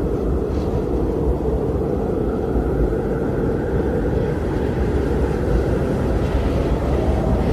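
Strong wind blowing steadily, a deep rushing rumble that swells and eases a little without letting up.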